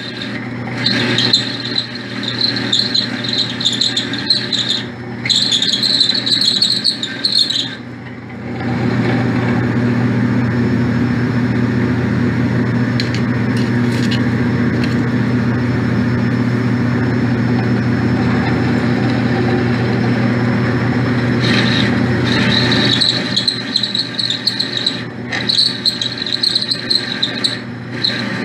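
Myford 254 lathe running while a one-inch drill bores out a rear axle shaft held in its hub. Under a steady machine hum, a high wavering squeal from the cut comes in stretches with short breaks. It drops out for about thirteen seconds in the middle, leaving only the hum, then returns near the end.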